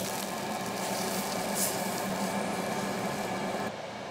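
Beef sizzling on a charcoal grill, a steady hiss over the hum of a fan. Near the end the hiss cuts off abruptly, leaving a quieter hum.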